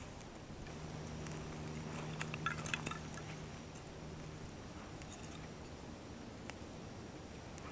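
Small kindling fire of wood shavings and twigs burning with faint crackles, and a cluster of small snaps and clicks in the middle as twigs are laid on. A low steady hum runs underneath for the first few seconds.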